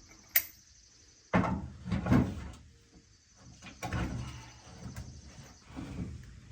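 Metal parts being handled: a sharp click, then several bursts of clanking and rattling as spacers and a wheel are fitted onto a finish mower's wheel shaft.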